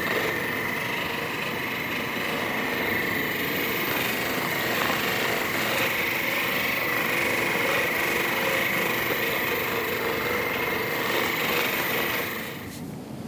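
Handheld electric percussion massager running steadily, a motor whine over a fast buzzing hammer, as it works the back; it cuts off suddenly near the end.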